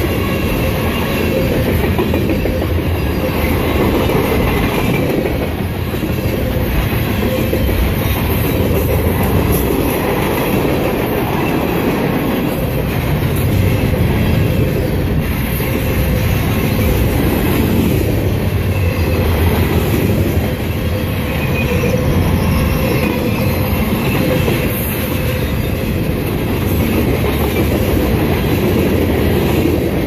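Freight train cars passing at high speed close by: a loud, steady rolling rush of steel wheels on rail, with rapid clacking over the rail joints.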